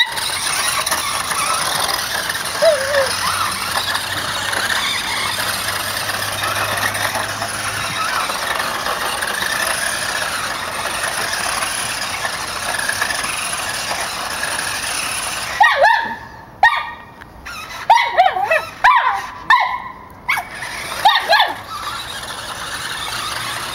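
A remote-control stunt car's motor running steadily, cutting out after about fifteen seconds. A dog then gives about half a dozen short, high-pitched barks over the next several seconds.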